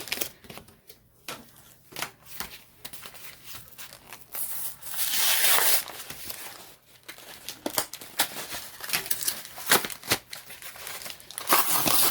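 Pokémon trading card packaging being handled and torn open: plastic and foil crinkling with scattered clicks, and longer tearing rips about five seconds in and again near the end.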